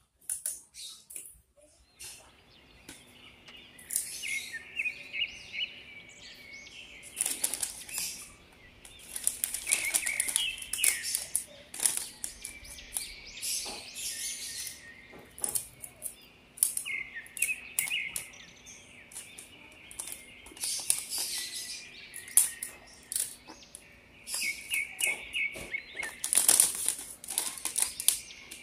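Clear plastic cellophane wrap crinkling and rustling in irregular crackles as it is pulled and folded around a gift box.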